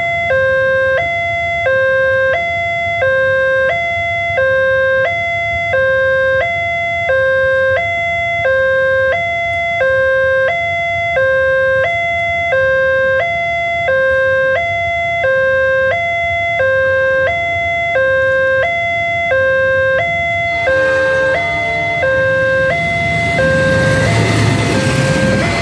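A railway level-crossing warning alarm sounds from the loudspeaker horn on the crossing signal: a loud electronic two-tone ding-dong, about one cycle a second. In the last few seconds the noise of an approaching train builds up under it, and the CC 206 diesel locomotive of the passing train rumbles past near the end.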